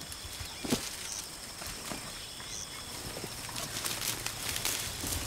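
Elephants feeding on bushes and acacia branches: leaves rustling and twigs crackling and snapping, the crackles coming thicker toward the end, over faint steady high insect-like tones.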